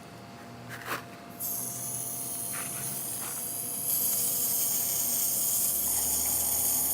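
A steady high-pitched hiss that starts about a second and a half in and grows louder about four seconds in.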